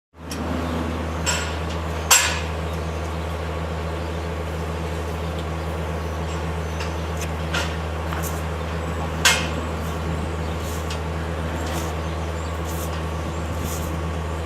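Steady low machine hum with occasional sharp metallic clanks and clinks, the loudest about two seconds in and again about nine seconds in.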